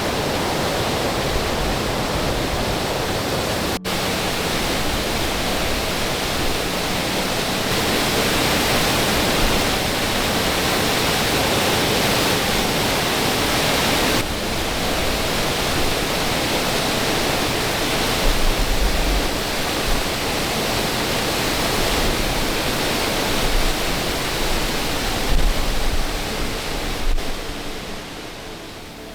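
Steady rushing water, a dense even roar like a waterfall or fast creek, with a few low bumps in the second half before it fades down near the end.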